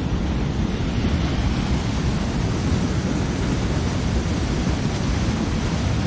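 Swollen, fast mountain river rushing over rock rapids: a steady, loud rush of white water.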